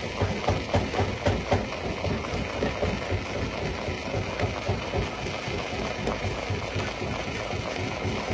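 Jaw stone crusher running with a steady mechanical rumble. It pulses about three times a second for the first two seconds, then evens out.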